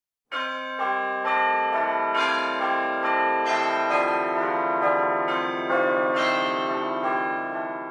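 Bells ringing in a peal: a new bell struck about every half second, each one ringing on under the next.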